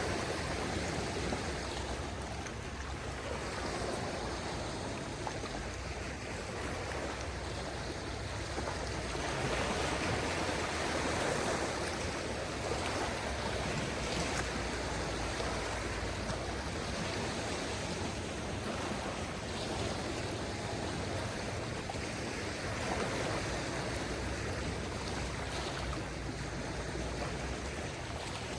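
Small waves of a calm sea washing onto the shore, a steady wash of water that swells and eases gently every few seconds.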